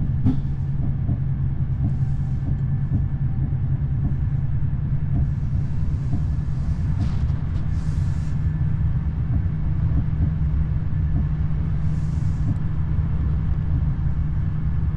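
Inside a moving VR electric commuter train: the carriage rumbles steadily on the rails under a constant low hum, with a few brief hisses now and then.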